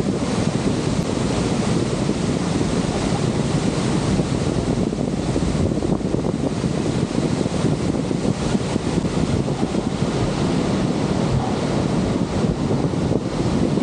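Steady roar of water pouring over Horseshoe Falls, with wind buffeting the microphone.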